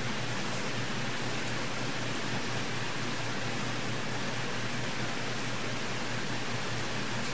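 Steady, even hiss of background noise with a faint low hum underneath, unchanging throughout.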